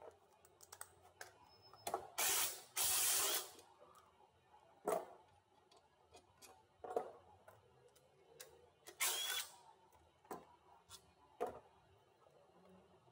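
Air ratchet spinning in three short bursts, about two, three and nine seconds in, with sharp metallic clinks of socket and extension in between.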